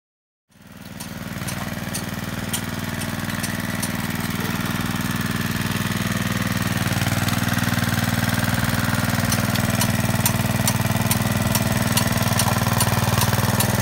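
Small single-cylinder petrol engine of a portable water pump running steadily, coming in about half a second in and growing slowly louder, with faint scattered ticks over it.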